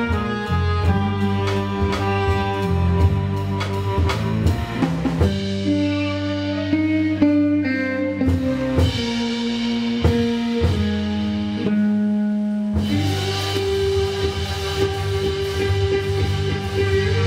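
Live experimental orchestral ensemble playing: held low notes that change pitch every second or so under sharp drum hits. The sound turns brighter and busier about thirteen seconds in.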